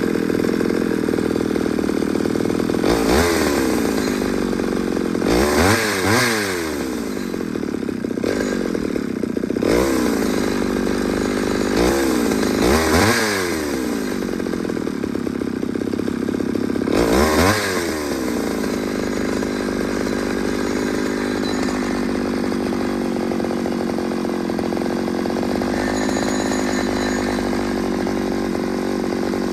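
Ported Pioneer two-stroke chainsaw revved in about five short bursts, each one dropping back to idle, then idling steadily for the last ten seconds or so.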